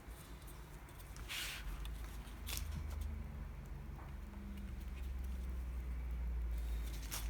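Quiet handling noises as a ruler and cloth tape are worked on a cutting mat: a few short, light scrapes and rustles, about a second in, around two and a half seconds in and again near the end, over a low steady rumble.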